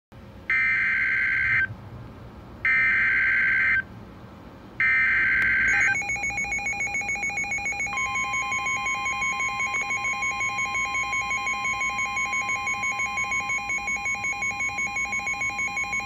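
Midland S.A.M.E. weather alert radio receiving a NOAA Weather Radio severe thunderstorm warning: three one-second bursts of the digital SAME header data tones, then the radio's rapid alarm beeping starts about six seconds in. About two seconds later the broadcast's steady 1050 Hz warning alert tone joins the beeping and holds.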